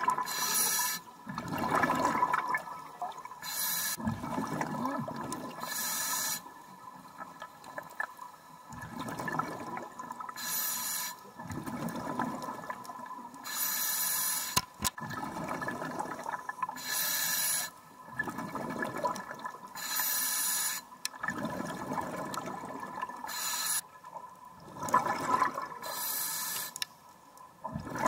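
Underwater scuba breathing through a demand regulator: a short hiss on each inhale, then a gurgling rush of exhaled bubbles, repeating about every 3 seconds. A faint steady whine sits underneath.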